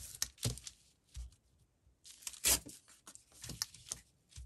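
Paper scraps being handled and torn by hand: a string of short rustles and rips, the loudest a little past halfway through.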